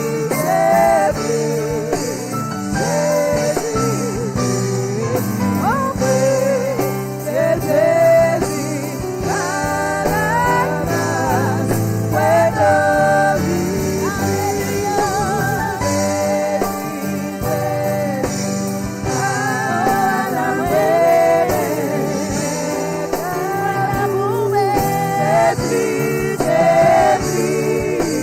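Gospel worship music: voices singing over instrumental accompaniment.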